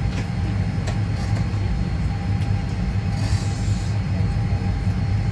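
Steady low drone inside a parked Boeing 787-9 airliner's cabin, with a faint steady whine over it and a brief hiss about three seconds in.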